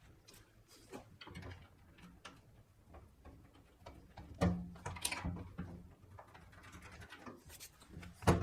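Faint clicks and taps of tools and bolts being handled during assembly of a steel welding cart, with a louder knock about halfway through and another near the end.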